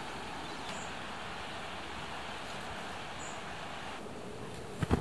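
Steady outdoor background hiss with two faint, short, high chirps. Near the end comes a brief crunch of sand and gravel being scooped to bury a campfire pit.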